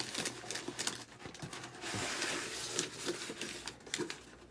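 Packaging being handled and unwrapped: rustling and crinkling, with scattered light knocks and a longer rustle about two seconds in.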